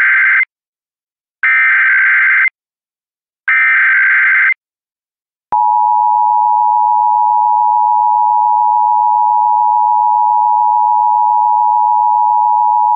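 Emergency Alert System broadcast: three roughly one-second bursts of screeching digital SAME header data, the first already under way, about a second apart. About five and a half seconds in comes the EAS attention signal, a loud steady two-tone alert tone that holds without change.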